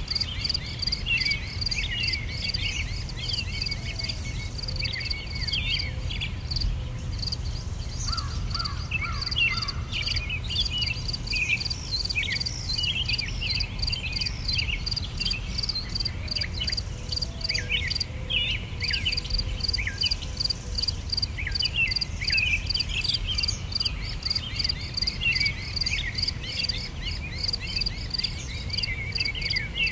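Nature ambience: an insect chirping in a steady high pulse a few times a second, with many small birds twittering over it and a steady low rumble underneath.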